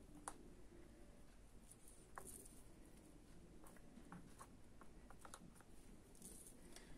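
Near silence with a few faint, light clicks and taps as apple slices are pressed onto batter in small metal cake tins.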